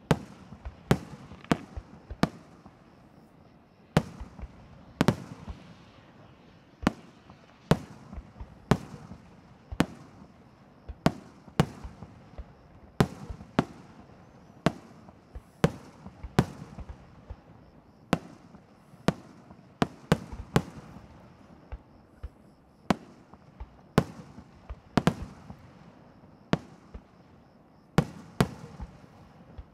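Fireworks display: aerial shells bursting one after another in sharp bangs, about one a second at an uneven pace and sometimes two close together, with crackling between the bangs.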